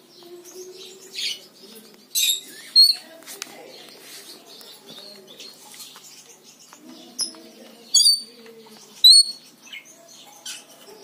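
Rainbow lorikeet giving short, sharp, high-pitched chirps, about half a dozen spaced a second or more apart, the loudest in the second half.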